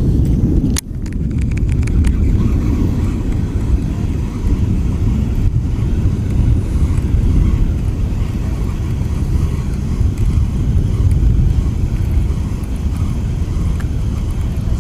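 Storm wind buffeting the microphone: a loud, steady low rumble, broken by a brief click and dropout about a second in.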